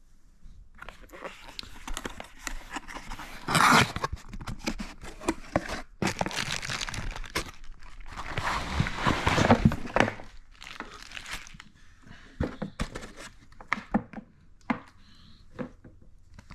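Packaging being handled and pulled apart: crinkling and rustling with louder tearing bursts about four seconds in and again around nine seconds, then a few scattered light knocks and taps near the end.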